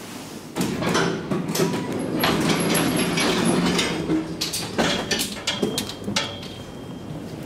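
Sliding doors of a new SMW traction elevator opening, with the door drive humming and the panels rattling and clattering for about four seconds. Several separate knocks and steps follow near the end.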